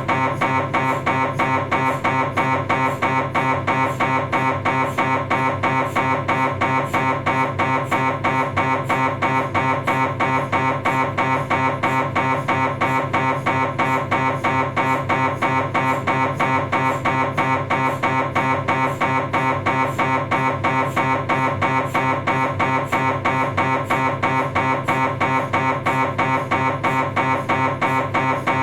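Philips 1.5 T MRI scanner's gradient coils knocking in a rapid, even rhythm over a buzzing tone, the steady pulse pattern of a STIR sagittal cervical spine sequence.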